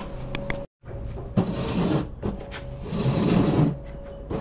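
Household items being shifted and handled: two bursts of scraping and rustling, each about half a second long, over a faint steady hum. The sound cuts out completely for a moment just before the first burst.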